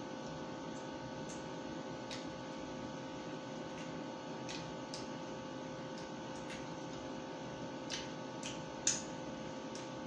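Eating sounds: irregular short clicks and smacks of chewing and tearing roast chicken by hand, the loudest about nine seconds in, over a steady room hum.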